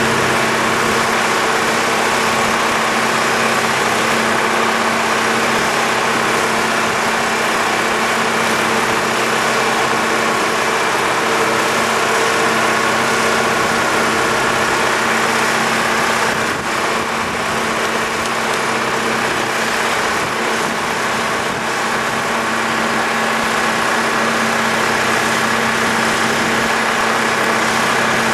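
Engine of a Sea-Lift self-propelled hydraulic boat trailer running at a steady speed, a constant hum.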